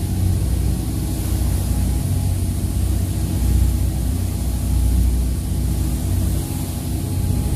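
An engine running at a steady speed: a low, unchanging drone with a light hiss above it.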